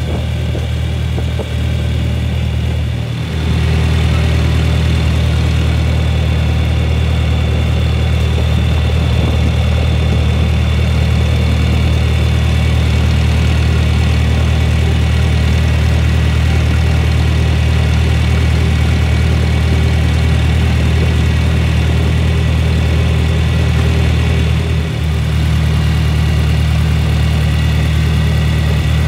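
John Deere 3020 tractor's four-cylinder engine running steadily at road speed. There is a brief dip in its sound about three seconds in, after which it runs a little louder, and a short dip again near the end.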